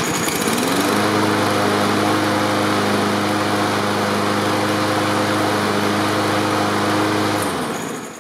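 Briggs & Stratton four-stroke single-cylinder lawn mower engine pull-started: it catches at once, rises to speed within about a second and runs steadily, then slows and stops near the end. It is running on a freshly cleaned carburettor with its jet drilled out, after the fault of starting but not staying running.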